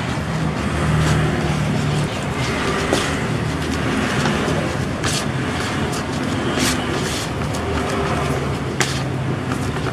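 Plastic spoon stirring and scraping damp, crumbly bait mix (hardener powder and water) in a plastic basin, with a few sharper scrapes, over a steady low rumble.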